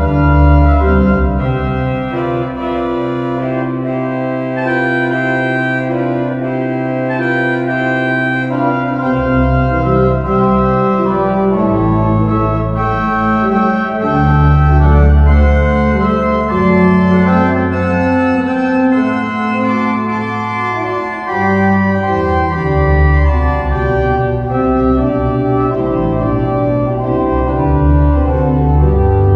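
Church pipe organ playing a many-voiced piece, with long-held low pedal notes beneath moving upper voices.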